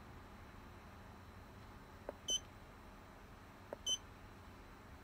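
Two short high-pitched key-press beeps from an FCAR F506 handheld scan tool, about a second and a half apart, each just after the soft click of a button being pressed.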